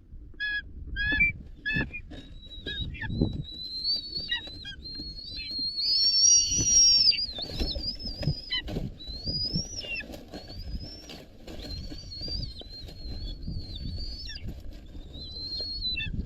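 Eaglet giving high-pitched begging calls: a run of short, quick chirps in the first two seconds, then long, wavering whistled squeals that rise and fall almost without a break.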